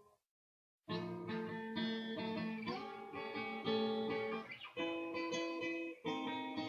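Guitar music with strummed and plucked chords, coming in after about a second of silence.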